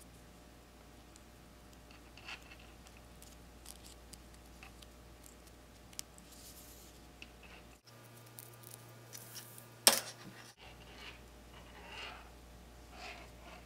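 Paracord rubbing and rustling as it is worked and tucked through a metal split key ring, with scattered faint clicks and one sharp click about ten seconds in.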